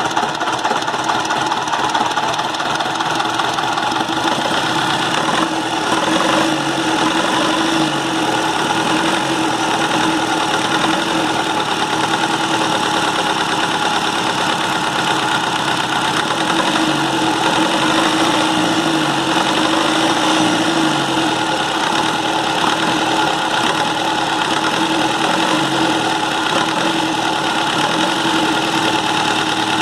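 Massey Ferguson 85 tractor's diesel engine idling steadily, the engine now keeping itself running on its repaired injection pump after earlier dying from air in the fuel.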